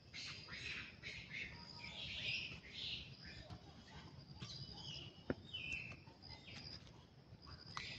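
Short high-pitched chirping animal calls, many in quick succession, with a single sharp click about five seconds in.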